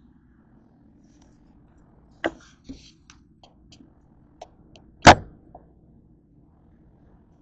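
Handling knocks from a plastic two-litre soda bottle being taken hold of on a desk: a sharp knock about two seconds in, a few faint ticks, then one loud thunk about five seconds in.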